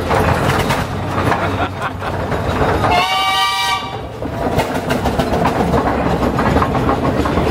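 Steam roller's engine chuffing steadily as it moves slowly along, with one steam whistle blast lasting about a second, about three seconds in.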